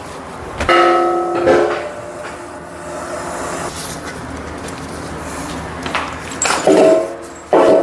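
Heavy steel parts clanking and scraping, with brief ringing metallic tones about a second in and again near the end, as a hydraulic cylinder is fitted into the steel frame of a log splitter.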